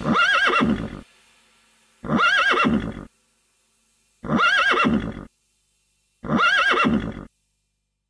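A horse whinnying four times, each call about a second long and about two seconds apart, the same quavering whinny repeated each time.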